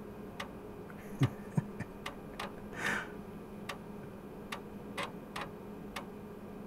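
Internal 3.5-inch floppy drive reading a disk while a file loads: the read head steps with a sparse run of sharp clicks, about two a second. Two heavier low knocks come a little after a second in, and a short rasp about three seconds in.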